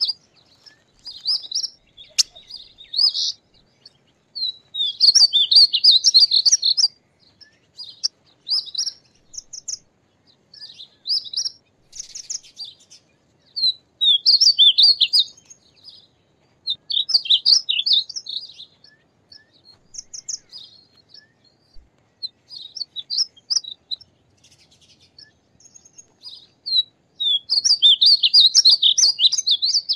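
Male painted bunting singing: a series of short, quick warbled song phrases, repeated every couple of seconds with brief pauses between them.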